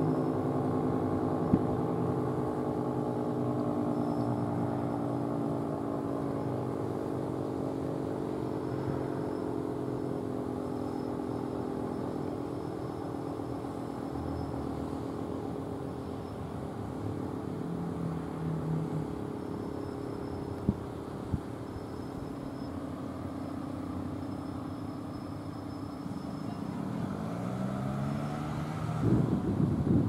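Federal Signal 2T22 two-tone outdoor warning siren winding down: its chord slides slowly lower in pitch and fades over the first half. Near the end it winds back up, the chord rising and growing loud.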